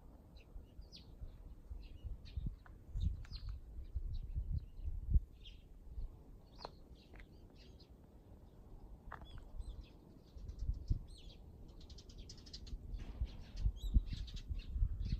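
Small birds chirping in short, scattered calls, with low gusts of wind buffeting the microphone, loudest around five seconds in and again near the end.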